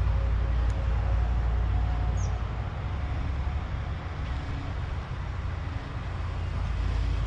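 Steady low rumble of road traffic, with a short bird chirp about two seconds in.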